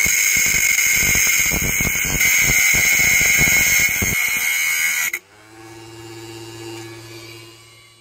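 Homemade angle grinder, an RS775 DC motor driving a 4-inch metal-cutting disc, grinding through a thin metal rod with a loud, steady, high-pitched cutting sound. About five seconds in, the cutting stops abruptly and a much quieter motor hum carries on, fading away near the end.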